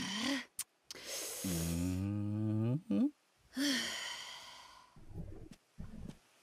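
A man's stifled laughter behind his hand: wheezing breaths with a low, drawn-out voiced hum in the middle, fading off near the end.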